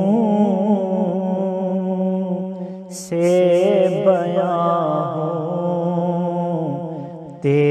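A man's solo voice reciting an Urdu naat, devotional verse sung without instruments. He sings two long, wavering melodic phrases, with a short breath just after three seconds in.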